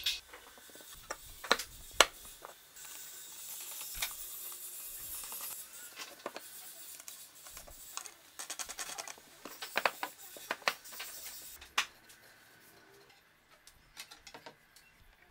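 Wooden parts of a homemade jig being handled and fitted together by hand: scattered sharp knocks and clicks of wood and metal, the loudest about two seconds in, and a stretch of rubbing noise from about three to six seconds in.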